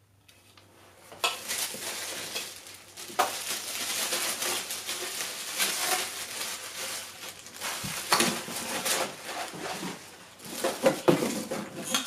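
Plastic packaging bags crinkling and rustling as vacuum parts are handled and lifted out of a cardboard box, with a few sharper knocks among them. It starts faintly and gets louder about a second in.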